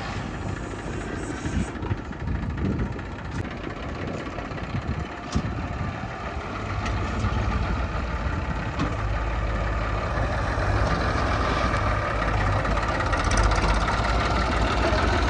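Heavy diesel engine of earthmoving machinery running steadily, growing louder about six seconds in, with scattered knocks over the first few seconds.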